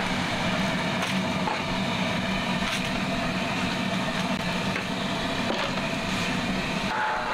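Large pot of water at a rolling boil with a steady rumbling hum, as fresh yellow egg noodles are swished through it by hand.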